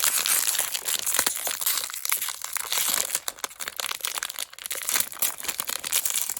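Crinkly packaging being crumpled and crunched in the hands as a blind-packed toy figure is unwrapped, a dense crackling with many small snaps.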